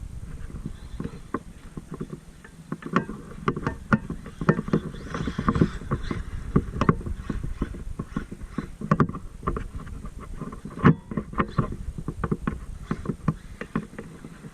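Traxxas MAXX RC monster truck driving over rough ground, with many irregular sharp knocks and clatters from its wheels and suspension over a low rumble.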